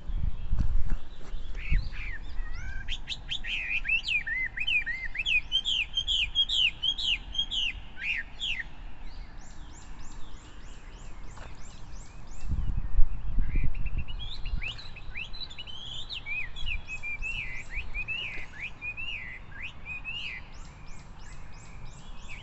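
A small bird singing outdoors: two long runs of quick, varied chirping whistles, each followed by a fast, high ticking trill. Low rumbling noise comes in near the start and again about halfway through.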